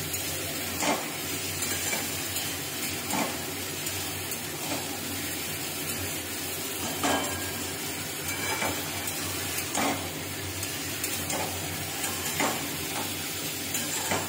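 Leafy greens and potato sizzling in oil in a wok, with a metal spatula scraping the pan as they are stirred every second or two.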